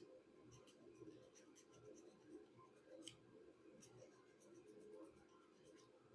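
Faint scratching of coarse sandpaper rubbed by hand over the face of a nightlight clip to roughen it for gluing, with a few light ticks.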